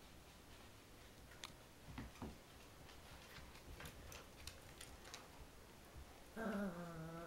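Dogs playing tug-of-war: faint, scattered clicks and taps from paws, claws and the toy. Near the end comes a drawn-out, wavering vocal sound about a second long.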